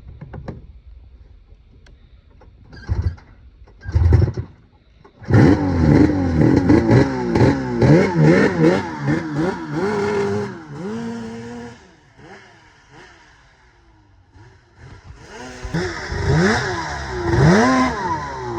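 Two-stroke Polaris snowmobile engine revving hard, its pitch repeatedly rising and falling, fading away for a few seconds and then coming back loud near the end, on its first ride after a rebuild while still cold. Before it, a couple of short thumps.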